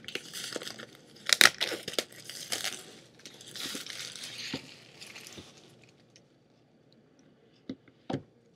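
Packaging of a new iPad box being torn and crinkled open, with a sharp snap about one and a half seconds in. The rustling dies away after about five seconds, leaving two light clicks near the end.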